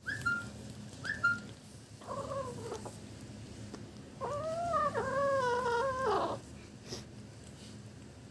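A kitten making little mewing "yum-yum" calls while eating fish: two short chirps, then a call of under a second, then a longer drawn-out call near the middle.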